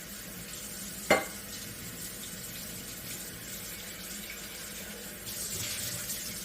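Running tap water rinsing a coffee carafe in a sink, with one sharp clink of the carafe against the sink about a second in and the water growing louder near the end.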